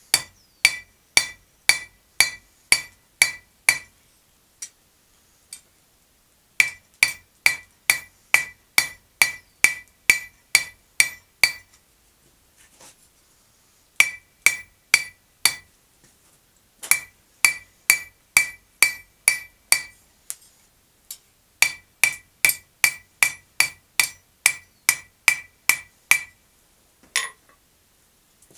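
Hand hammer striking red-hot steel on an anvil, about two blows a second, each ringing out from the anvil. The blows come in five runs with short pauses between them.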